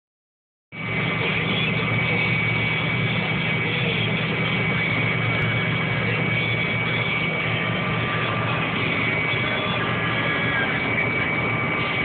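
John Deere combine harvester running steadily while cutting wheat, heard from the cab: a constant machinery hum with a steady high whine over it. It comes in abruptly a little under a second in.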